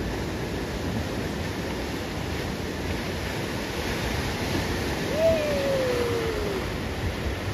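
Ocean surf washing steadily against the rocks of a jetty. About five seconds in, a single short tone cuts through, sliding down in pitch over a second or so.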